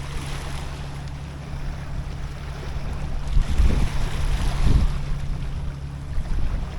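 Strong wind buffeting the microphone, rising and falling in gusts, with a steady low hum underneath.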